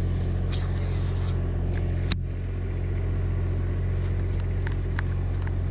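Steady low hum of a boat motor running, with one sharp click about two seconds in and a few faint ticks later.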